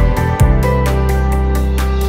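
Background music with a steady beat: quick ticks about four times a second over a held bass note.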